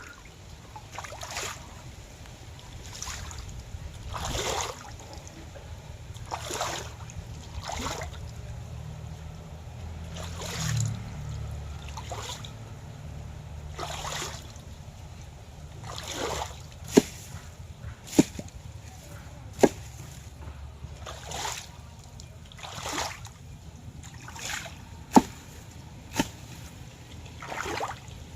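Water splashing and sloshing in irregular swells every second or two over a steady low hum, with a few sharp clicks in the second half.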